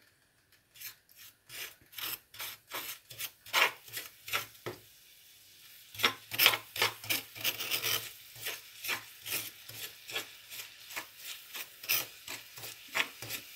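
Metal spoon scraping and stirring lumps of crystallised sugar around a dark pan, in repeated rasping strokes with brief pauses. The sugar has seized hard instead of melting.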